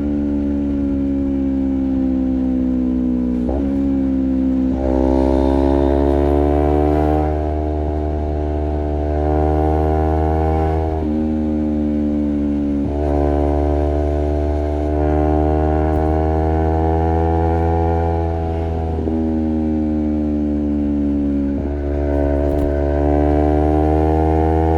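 Honda CBR250RR's parallel-twin engine running through a Project 79 slip-on exhaust while riding. The engine note rises and falls slowly with the throttle and steps sharply in pitch several times as gears are changed.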